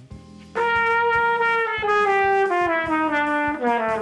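Trumpet playing a phrase of notes that steps downward, starting about half a second in and jumping back up near the end. It is played on a chest-only breath to show the throat tightening and closing up.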